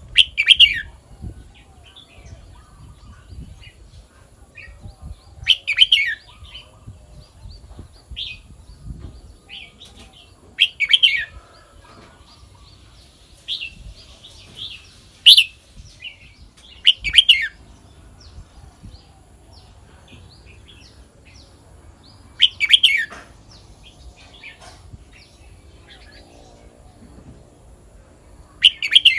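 Red-whiskered bulbul singing: short, loud, warbled phrases every few seconds, with softer chirps in between.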